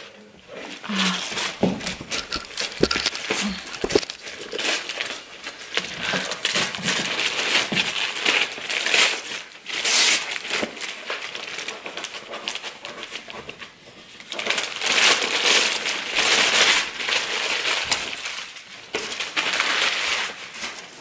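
Christmas wrapping paper being torn off a boxed present and crumpled, a dense crinkling and rustling that comes in repeated loud swells.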